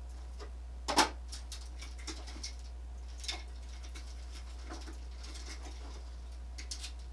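Scattered small clicks and taps of plastic parts and tools being handled while a game controller is taken apart, the loudest about a second in. A steady low hum lies under it.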